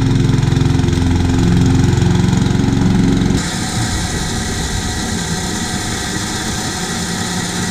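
Petrol rotary lawn mower with a Honda engine running and cutting grass, a loud low engine drone. About three and a half seconds in it switches abruptly to a petrol cylinder (reel) mower running, with less bass and a steady hiss of engine and spinning reel.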